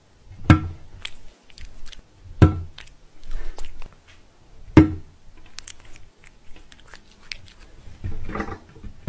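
Three sharp knocks, each with a short ringing tail, about two seconds apart, with small ticks between them, then a brief rough, noisy sound about eight seconds in.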